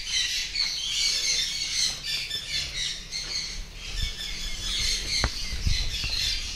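Suncheek conures squawking and chattering without a break in shrill, overlapping calls. A few low knocks come between about four and six seconds in.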